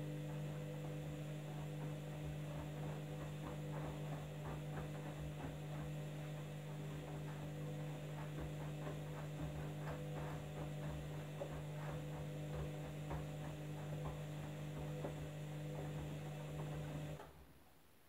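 Candy front-loading washing machine's drum motor humming steadily as the drum tumbles the laundry through soapy water, with irregular splashing and clicking from the load. The motor stops suddenly about 17 seconds in: the drum pauses between turns of the wash.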